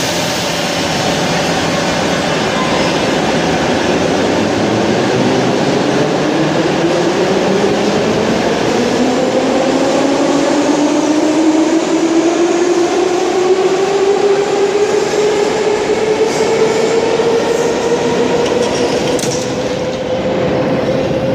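Metro train's traction motors whining as it pulls away, the whine rising steadily in pitch for about fifteen seconds over the rumble of the running train.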